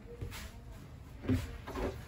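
Light knocks and bumps of a dinette table top being lifted off its mount and handled, with a louder thump about a second and a half in.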